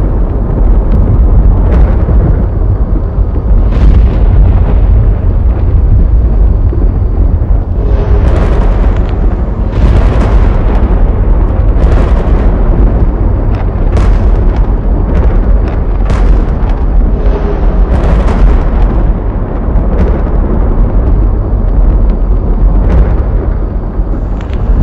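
Storm sound effects: a continuous deep rumble of thunder with sharp electrical cracks of lightning striking, coming about once a second through the middle.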